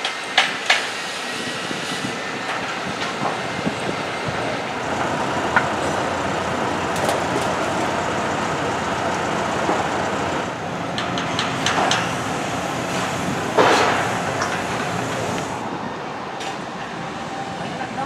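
Steady construction-site machinery noise with scattered sharp knocks and clanks, a cluster of them about eleven seconds in and a louder one a couple of seconds later.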